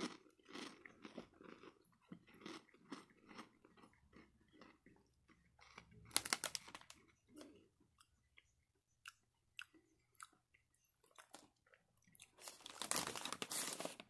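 A person biting and chewing crispy fried pork rinds, a run of small dry crunches with louder, denser bursts of crunching about six seconds in and again near the end.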